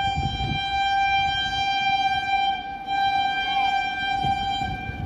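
Indian Railways train horn sounding one long, steady blast, letting up briefly about two and a half seconds in and sounding again, over a low rumble.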